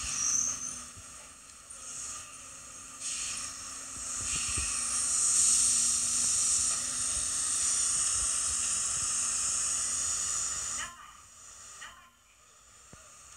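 A Kintetsu train at the station platform giving off a long, loud hiss. It builds over a few seconds, holds steady, then drops away suddenly about eleven seconds in.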